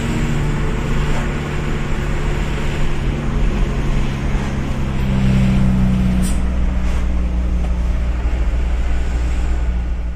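Mitsubishi Canter truck's diesel engine droning steadily at cruising speed, with tyre and road noise, heard from inside the cab; the engine note grows a little louder about five seconds in.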